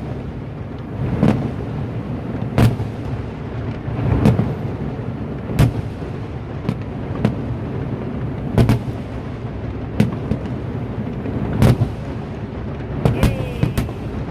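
Fireworks going off: about a dozen sharp bangs at irregular intervals, roughly one to one and a half seconds apart, over a steady low rumble.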